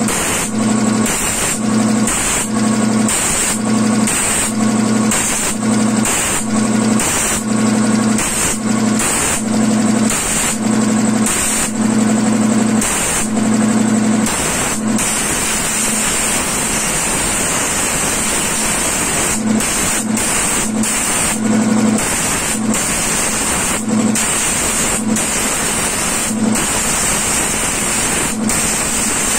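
Compressed air hissing from an air blow gun onto a washed audio mixer's circuit board to drive out the leftover water, over the steady hum of a piston air compressor running. The hiss comes in short repeated bursts for about the first half, then runs almost continuously with brief breaks.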